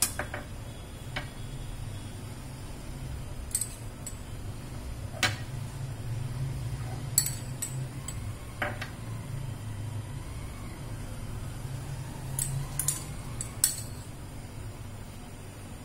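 A metal spoon clinking now and then against a small glass bowl and a steel plate as sauce is scooped and spread on bread slices. There are about ten light, scattered clinks and taps over a steady low hum.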